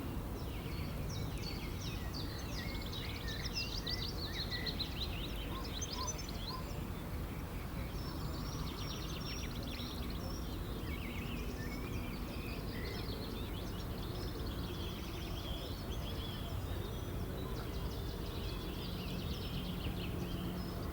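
River water flowing with a steady low rush, with many birds chirping and singing over it.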